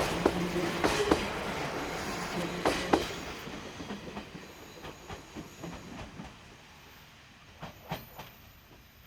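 Two-car KiHa 40 diesel railcar train running over rail joints, its wheels clacking in close pairs over a low steady hum. The clacks and the running sound fade as the train moves away.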